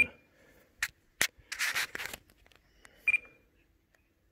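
Spektrum DX9 radio transmitter giving short high beeps as it is operated, one at the start and another about three seconds in. In between come two sharp plastic clicks and a brief rubbing scrape from handling the transmitter.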